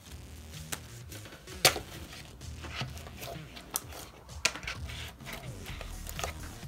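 Fluffy slime, made with shaving cream, being poked and pressed with the fingers, giving irregular sharp clicks spaced about a second apart.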